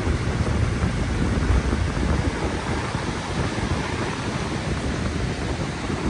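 Sea surf breaking and washing foam up the beach, a continuous rushing wash of water, with wind buffeting the microphone as a low rumble.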